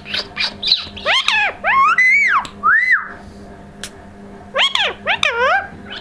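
An Indian ringneck parakeet (rose-ringed parakeet) vocalizing in high-pitched notes, each rising and then falling. A quick run of them fills the first three seconds, and a second short run comes about four and a half seconds in.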